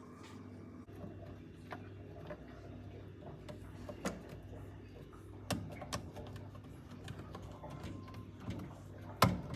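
Scattered light clicks and knocks, as of items being handled, over a steady low hum, with one sharper knock near the end.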